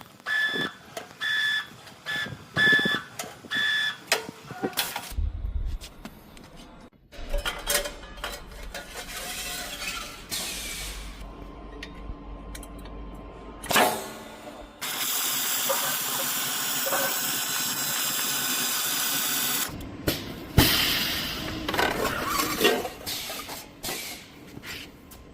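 Metal-fabrication machinery for forming oil tanks. A machine beeps about five times in the first four seconds. Then motors hum, with knocks and clanks. Near the middle comes a steady hiss lasting about five seconds, which cuts off suddenly.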